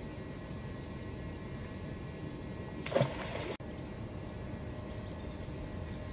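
A magnet-fishing magnet on its rope dropping into canal water with a short splash about three seconds in, over a steady background hiss.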